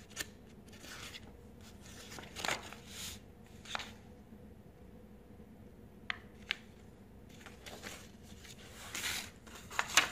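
Paper rustling as the pages of an instruction manual are turned and handled: a string of short rustles and a couple of sharp flicks, loudest near the end.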